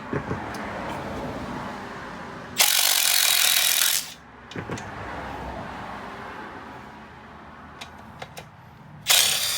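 Ratchet driving a bolt-extractor socket on a rounded bolt in the VR6 engine, in two loud runs: one about a second and a half long a few seconds in, and a shorter one near the end as the bolt works loose.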